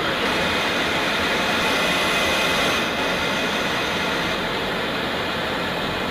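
Steady noise of a jet aircraft in flight: engines and rushing airflow as one constant, even hiss-like rumble, dropping slightly after about three seconds.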